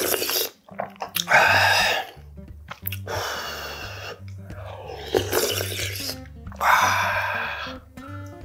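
A person slurping braised-fish broth from a wooden spoon in several long, noisy slurps, the loudest about a second and a half in. Steady background music with a bass line plays underneath.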